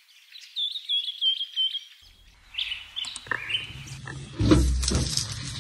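A small bird singing a quick run of high, repeated chirps, followed by scattered knocks and a loud, dull thump near the end.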